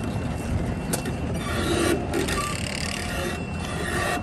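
Diesel engine of a heavy construction machine, a large rock saw, running steadily as the machine moves slowly off, with irregular mechanical clatter over a low rumble.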